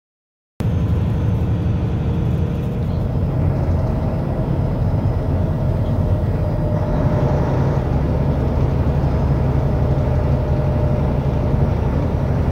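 Silence for about half a second, then the steady low drone of a truck's engine and tyre noise on the highway, heard from inside the cab.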